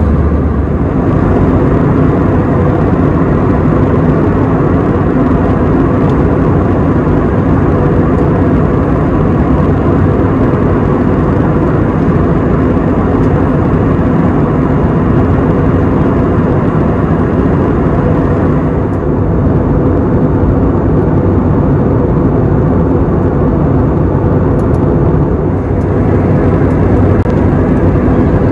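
Steady in-flight cabin noise of a jet airliner: engine hum and the rush of air along the fuselage, unchanging apart from a slight dulling of the hiss about two-thirds of the way through.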